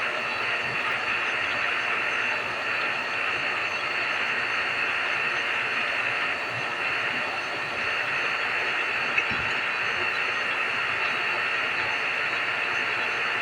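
Refrigeration vacuum pump running steadily, evacuating the mini-split air conditioner's lines after the compressor replacement. A single sharp click about nine seconds in.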